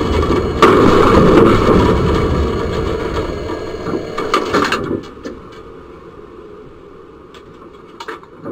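Tram heard from inside the driver's cab, running and braking hard. A loud rumbling noise jumps suddenly about half a second in, then falls away around five seconds in, leaving quieter clicks and ticks.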